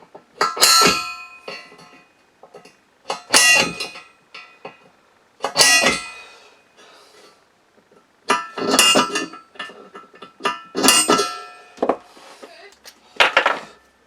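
Hammer striking a centre punch on steel, dot-punching hole centres for drilling: about six sharp, ringing metallic clangs a couple of seconds apart, some as quick double taps.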